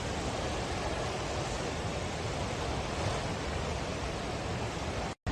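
Floodwater of a river in flash flood rushing past in a steady, continuous wash of noise. The sound cuts out for a split second near the end.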